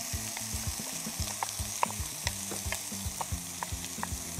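Pork sausage and diced red and green peppers sizzling in a hot cast-iron Dutch oven: a steady hiss with frequent small pops and crackles.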